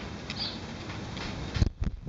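Hand trigger spray bottle squirting mildew remover onto a canvas awning: two short spray bursts about a second apart, then a few sharp knocks near the end.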